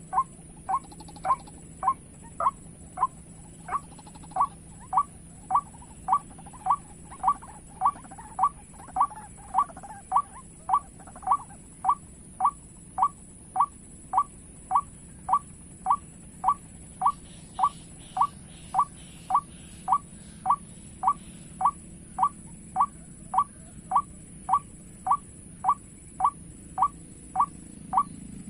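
White-breasted waterhen call played from a bird-call lure: one short rising note repeated about one and a half times a second, evenly spaced and unchanging.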